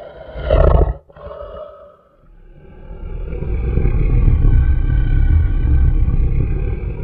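A domestic cat growling: short growls in the first two seconds, then one long, low growl from about two seconds in that swells and fades.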